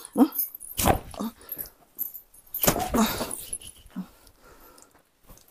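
Short whimpering vocal cries and a couple of sharp slapping thuds as two people trade blows on a bed, the loudest hits a little under a second in and a little under three seconds in.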